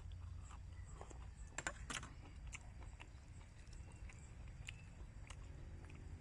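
Faint, scattered clicks and small crunches of someone chewing and eating chicken, a few irregular ticks over a steady low rumble.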